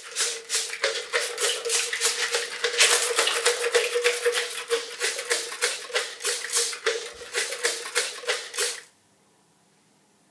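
A hand tool scraping back and forth across a painted wall in quick, rhythmic strokes, about three to four a second, with a steady hum beneath; the scraping stops abruptly near the end.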